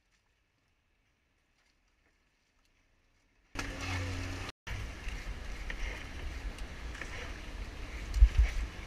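Near silence, then about three and a half seconds in a sudden rush of wind and surf noise with a heavy low rumble, as heard on an action camera's microphone aboard a small fishing boat in breaking waves; a louder thump comes near the end.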